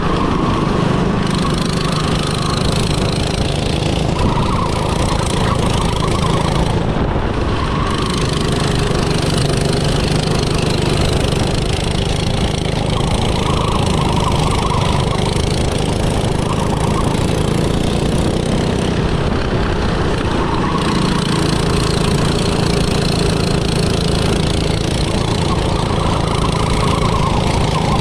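Go-kart's small engine running steadily, its pitch rising and falling several times as it speeds up and slows down.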